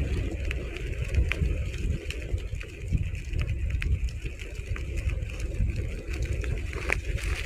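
Skateboard wheels rolling fast on pavement downhill: a steady low rumble with scattered small clicks and ticks from bumps and grit in the road.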